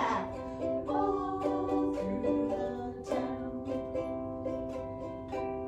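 Chords strummed on a stringed instrument, four strums each left to ring out.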